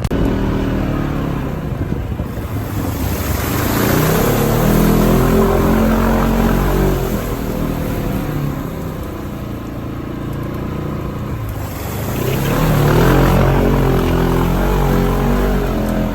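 Off-road vehicle engines revving as they pass, their pitch rising and falling, loudest twice: once around the middle and again near the end.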